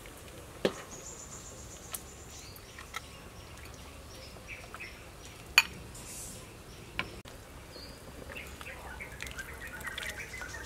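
A metal ladle clinks sharply about five times against the soup pot and a glass serving bowl as soup is ladled out. Birds chirp faintly over a low outdoor background.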